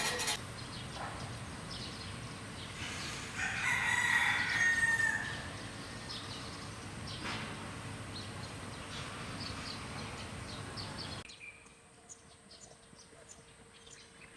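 A single loud bird call lasting about two seconds, a few seconds in, over a steady outdoor background hiss that drops away abruptly near the end.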